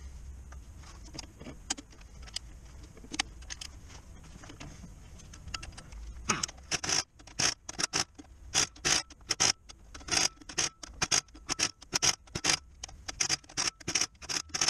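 Pneumatic impact wrench on the flywheel bolts, fired in many short bursts, about two or three a second, starting about six seconds in. Before that, only faint clinks of tools being handled.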